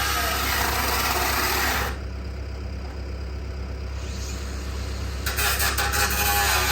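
Shop tool work over a steady low engine-like hum: a loud hissing mechanical noise stops about two seconds in and starts again a little after five seconds, with a run of sharp clicks.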